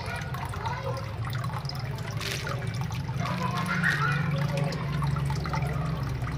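Water running and splashing steadily in a small backyard catfish pond.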